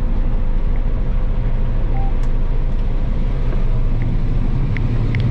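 Combine harvester running steadily while harvesting soybeans: a continuous low engine rumble with a faint steady whine from the threshing rotor.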